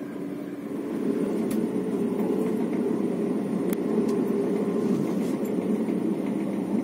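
Intercity passenger train running along the track, heard from inside the carriage: a steady low rumble that grows louder about a second in, with a few sharp clicks.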